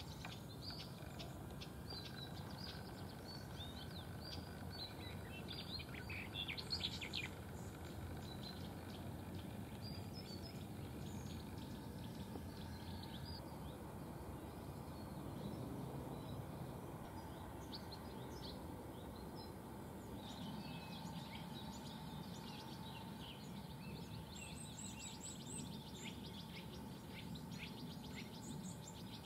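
Small songbirds chirping, short high calls scattered all through and loudest in a cluster around six to seven seconds in, over a steady low background noise.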